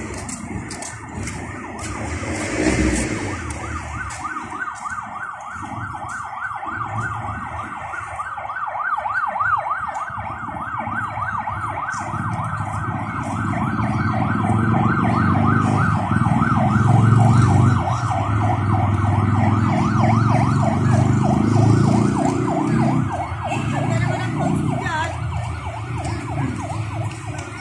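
Electronic siren in a fast yelp, its pitch sweeping up and down about three to four times a second, fading out near the end. A low traffic rumble runs beneath it, strongest in the middle.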